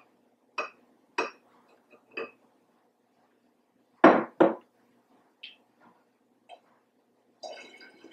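Glassware clinking and knocking: a few light clinks of a glass measuring cup against a glass bottle, then two loud knocks about four seconds in as the cup is set down on the table, and a short rattle near the end.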